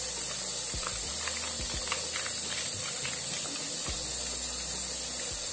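Meat sizzling with a steady hiss in a pressure cooker pot, while a plastic sachet of tomato sauce crinkles and crackles as it is squeezed out into the pot.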